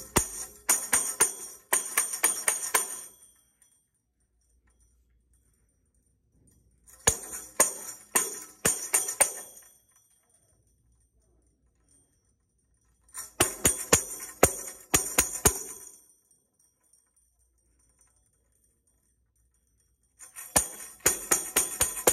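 Hand-held tambourine with a drum head and metal jingles, struck a few times a second in four short bursts of about two to three seconds, each broken off by a silent pause of three to four seconds. Playing and stopping are the start and stop cues of a freeze-and-dance game.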